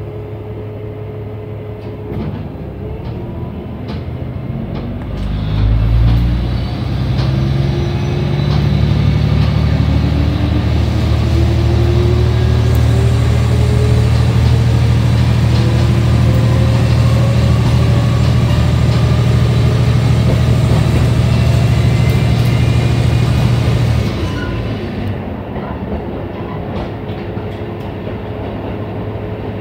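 Diesel engine of a KiHa 11 railcar, heard inside the car, running under throttle as the train pulls away, its pitch rising steadily over several seconds and then holding at a loud, steady drone. About 24 seconds in, the engine throttles back and the car coasts with quieter rail noise.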